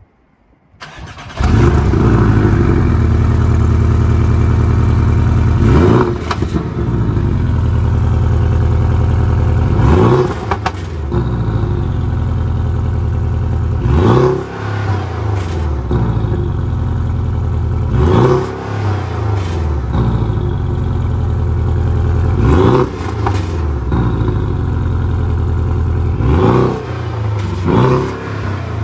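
Porsche 718 Cayman GTS's turbocharged 2.5-litre flat-four engine starting about a second in, then idling with a steady hum through the quad exhaust. It is revved in short throttle blips roughly every four seconds, the pitch rising and dropping back each time.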